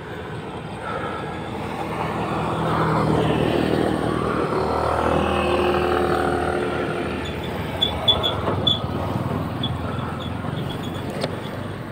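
A motor vehicle passing on the road: its engine grows louder over a few seconds and then fades away as it goes by.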